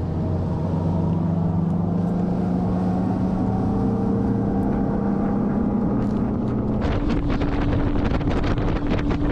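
Bass boat's outboard motor running at a steady speed. Wind buffets the microphone from about seven seconds in.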